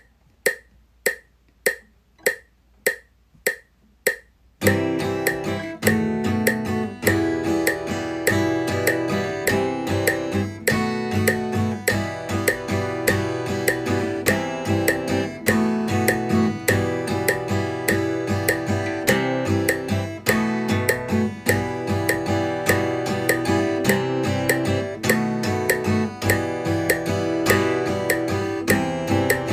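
A steady click, about two a second. Some four and a half seconds in, an acoustic guitar comes in over it, playing a strummed phrase picked entirely with downstrokes and built on half-note triplets (three even strokes across two beats), while the clicks keep time beneath.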